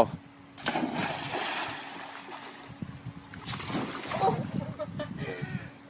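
Water splashing and sloshing in uneven bursts as a dog goes after its thrown ball.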